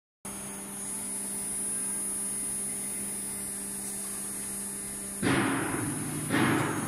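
CNC router running with a steady hum and a faint high whine. About five seconds in, as the machine starts moving, a louder noisy rush sets in suddenly and comes again about a second later, each dying away.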